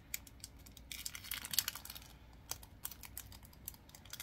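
Small clicks and taps of hard plastic planner tabs being handled and worked off their backing card, with a brief crinkle of plastic packaging about a second in.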